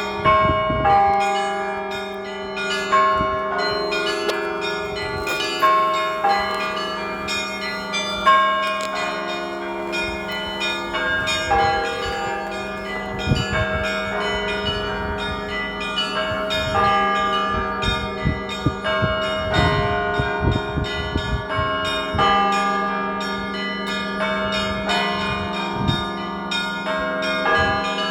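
Russian Orthodox church bells (kolokolny zvon) being rung: several smaller bells struck in quick, changing patterns over the steady hum of a large bell, with a heavier stroke every few seconds.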